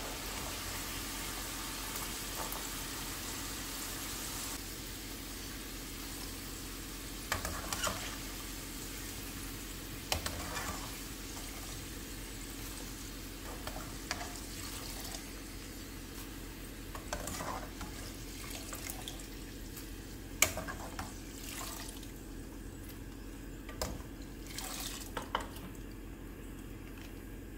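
Potato sticks frying in hot oil in a frying pan, a steady sizzle, with short knocks and scrapes of a metal skimmer as the fries are lifted out and dropped into a bowl. The sizzle dies down, most clearly after about four seconds and again near the end, as the pan empties.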